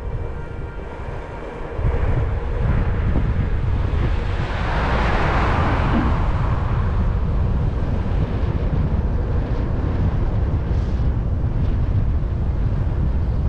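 Wind buffeting the microphone of a moving bicycle rider's camera, with tyre rumble on a rough road, coming in strongly about two seconds in. A hiss swells and fades about five seconds in.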